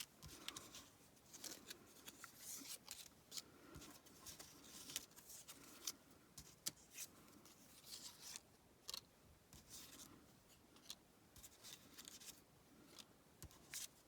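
Faint, irregular rustling and light ticks of small cardstock die-cut ephemera pieces being handled and shuffled through.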